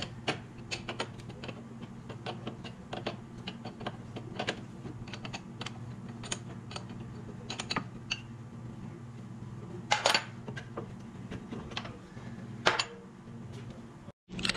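Hand wrench working on the fittings and pins of a snow plow's hydraulic lift cylinder: a run of small irregular metal clicks and clinks, with two louder knocks in the last few seconds, over a steady low hum.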